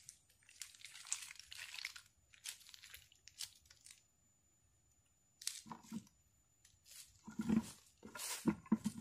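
Rustling and crunching from hands working a mesh trap and plastic bucket on dry leaves. The noises come in short irregular bursts, with louder bumps in the last few seconds.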